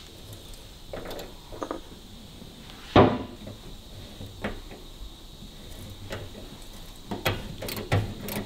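A small tap being turned by hand in a T-handle tap wrench, cutting a thread in a bolt hole in a steel fuel tank. Scattered light clicks and knocks of the tool against the metal, with one sharp knock about three seconds in, the loudest, and a run of quick clicks near the end.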